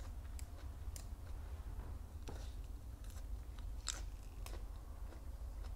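Crisp magnolia petals crunching and crackling close to the microphone, with scattered sharp clicks, over a steady low hum.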